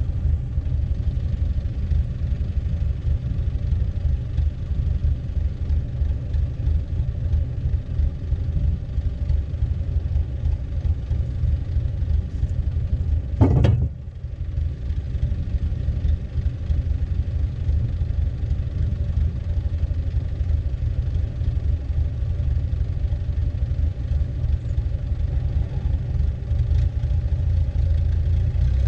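Farm tractor engine running steadily with a low rumble as it drives up onto a trailer's ramps, with a single sharp loud clank about halfway through.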